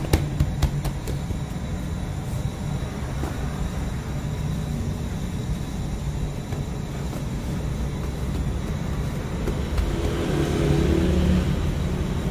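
Steady low mechanical hum and rumble of bakery machinery, with a few sharp clicks at the start and a louder swell about ten seconds in.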